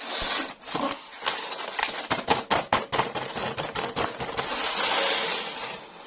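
Toy packaging and small toy parts handled by hand during unboxing: a continuous rustling, with a quick run of sharp clicks and taps in the middle.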